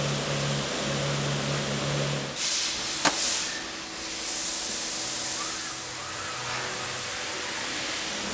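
Robotic press-brake cell with a vacuum suction-cup gripper working: a steady machine hum, with a pneumatic hiss for about a second and a half a little over two seconds in and one sharp click near its middle.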